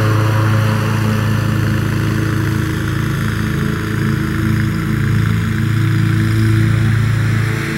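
Commercial lawn mower engine running steadily under load, with a constant low drone.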